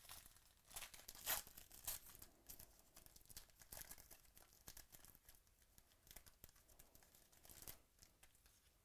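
Foil wrapper of a trading-card pack being torn open and crinkled by hand: a run of faint crackling rips, strongest in the first two seconds, with a last crinkle near the end.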